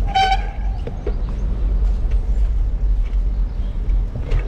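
Wind rumbling on the microphone of a moving bicycle's camera, with city traffic noise beneath it. There is one short high toot, like a horn, just after the start.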